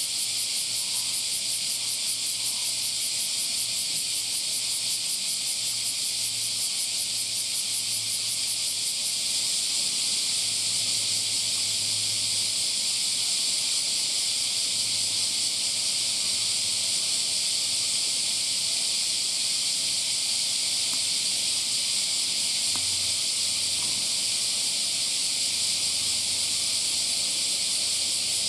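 Summer cicadas singing in chorus: a loud, high buzzing hiss, rapidly pulsing for the first several seconds and then steady.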